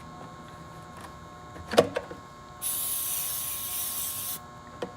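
A sharp clack about two seconds in, then a steady spray hissing for nearly two seconds that stops abruptly, with a few light clicks around it.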